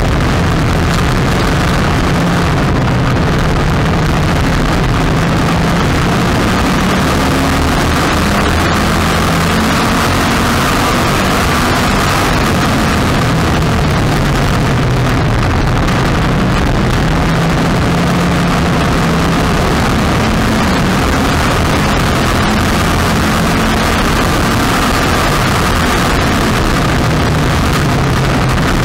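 Street stock race car's engine heard from an onboard camera, running hard at racing speed, loud and steady, its pitch rising and falling with the throttle through the turns.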